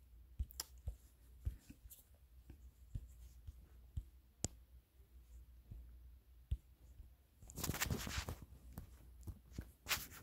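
Faint, scattered taps and clicks of a fingertip on a phone touchscreen while drawing, with a brief rustling noise about three-quarters of the way through.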